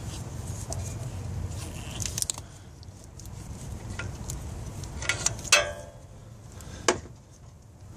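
Metal clicks and clinks of hand tools and parts being handled under the hood, with one clink about five and a half seconds in ringing briefly, over a low steady rumble.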